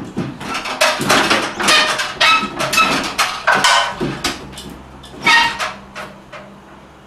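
Heavy air conditioner unit being shoved and dragged onto a ladder: a rapid run of knocks, scrapes and metallic clanks that stops about five and a half seconds in.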